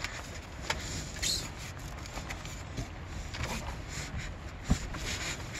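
Handling noise as a foam-insulated copper line set is worked into place: rubbing and rustling of the insulation sleeve, with scattered small knocks and clicks. The sharpest knock comes a little before the end.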